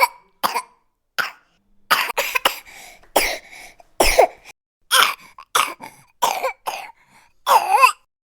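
A person coughing again and again: a string of short coughs, some coming in quick runs of two or three, with a longer, throaty cough near the end.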